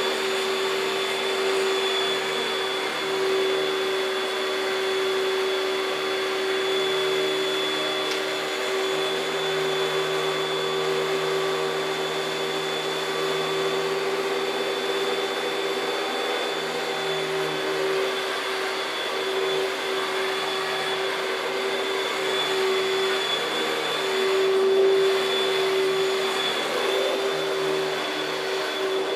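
Panasonic Jet-Flo MC-6217 upright vacuum cleaner running steadily: an even motor hum with a thin high whine over the rush of air, swelling briefly near the end.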